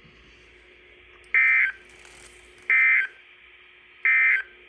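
Emergency Alert System (SAME) end-of-message data bursts: three short, loud electronic bursts about 1.4 seconds apart, over a faint steady hum. They mark the end of the alert message.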